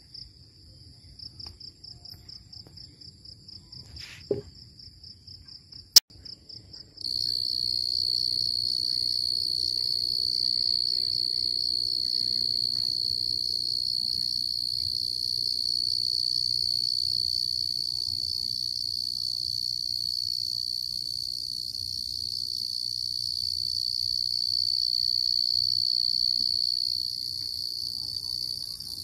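Crickets chirping at night. At first the chirps come in rapid pulses, with a short knock and then a sharp click. About seven seconds in, a louder, continuous high trill starts abruptly.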